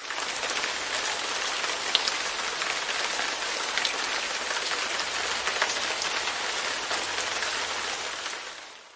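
Light rain on a window pane: a steady hiss of rain with individual drops ticking sharply against the glass. It fades in at the start and fades out near the end.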